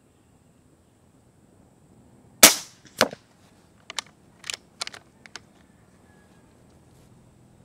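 Umarex Gauntlet .25-calibre regulated PCP air rifle with its factory shroud fires one shot, a sharp report. A second, quieter crack follows about half a second later, then several light clicks.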